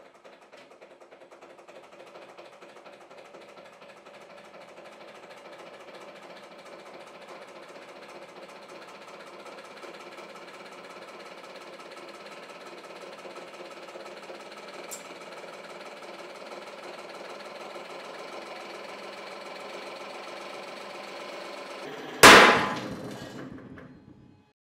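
Hydraulic press running with a steady, slowly building machine drone as it pulls a steel connecting rod apart in tension. About 22 seconds in, the rod's big end fails under about 11 tonnes of load with one loud, sharp crack that rings off over about two seconds.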